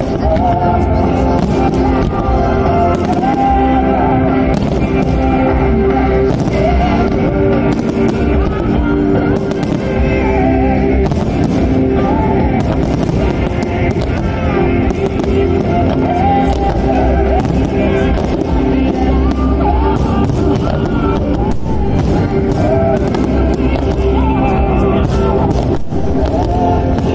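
Loud music playing while aerial firework shells burst overhead, with many sharp bangs and crackles scattered throughout over the music.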